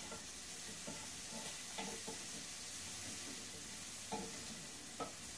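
Bacon sizzling in a frying pan that has just been taken off the heat, a steady hiss with a few short crackles. The sizzle means the pan is still too hot to take the egg mixture, which would scramble.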